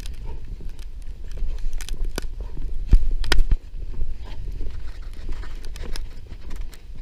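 Footsteps crunching through deep snow, irregular and close, over a low rumble on a body-worn camera's microphone. A cluster of louder knocks comes a little after three seconds in.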